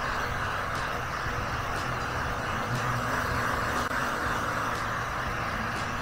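Electric heat gun running steadily: a constant blowing hiss of its fan with a low hum underneath.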